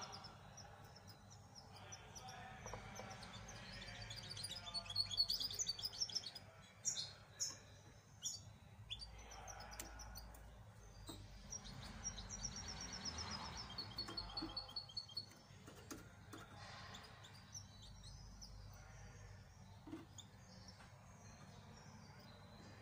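A young caged songbird, about two months old and still being trained, singing high chirpy phrases in two main bouts. The second bout ends in a fast, even trill.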